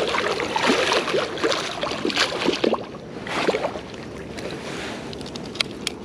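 A hooked catfish thrashing and splashing at the water's surface beside the bank as it is landed, in a few irregular bursts.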